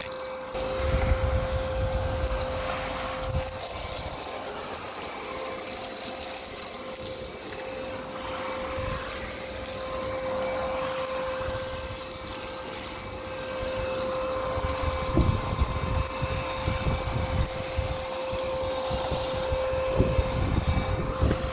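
Miele Complete C2 Tango EcoLine canister vacuum running steadily, with a constant motor whine over the rush of suction as it is worked over pavement. Low rumbles come and go, around a second in, about two-thirds through and near the end.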